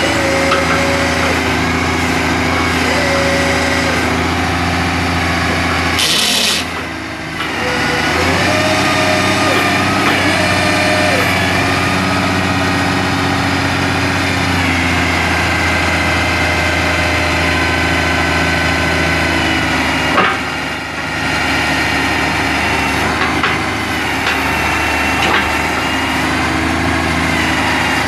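International DT466 inline-six turbo diesel running steadily to drive the Altec digger derrick's hydraulics, with whining tones that shift in pitch as the boom and auger controls are worked. There is a short hiss about six seconds in, and the sound dips briefly twice.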